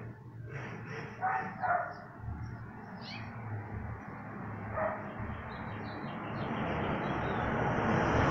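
A dog gives a few short barks in the first two seconds and one more about five seconds in. A broad rush of noise then grows steadily louder toward the end.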